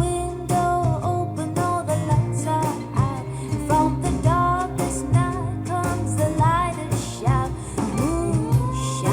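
A female voice singing a slow melody over guitar and bass, played back through Klipsch R-15PM powered bookshelf speakers.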